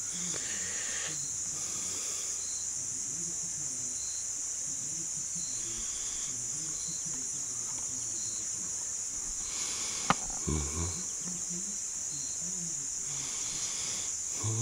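Steady high-pitched drone of insects, with one sharp click about ten seconds in and a brief low bump just after it.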